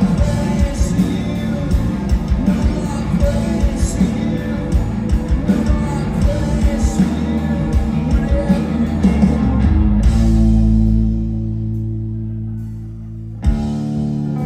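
Live rock band with electric guitars, bass and drums playing at full volume. About ten seconds in the drums stop and a held chord rings on and slowly fades, until a new chord is struck near the end and left to ring.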